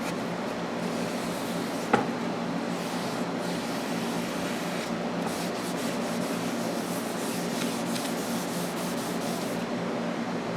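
Cloth rubbing wood conditioner into a pine board, a steady scrubbing hiss. A single sharp knock comes about two seconds in.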